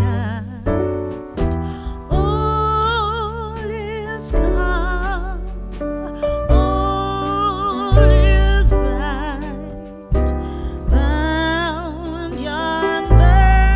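Background music: a slow song with a singing voice, wavering with vibrato, over held bass notes and keyboard.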